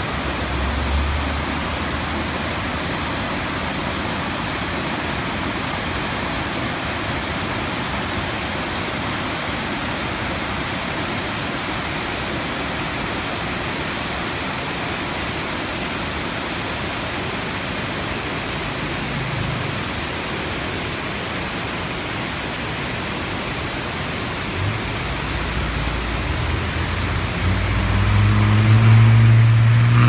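Steady rush of white water tumbling over the rocks of Ravana Falls' cascades. In the last few seconds a motor vehicle's engine comes in underneath and grows louder.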